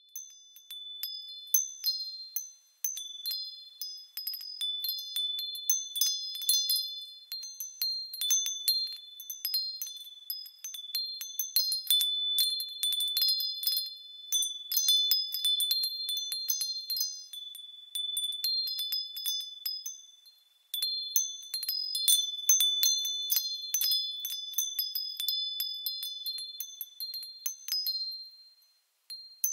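Wind chimes tinkling: a dense, irregular jumble of high, clear ringing tones with nothing low beneath. About two-thirds of the way through it dies away almost completely and starts again.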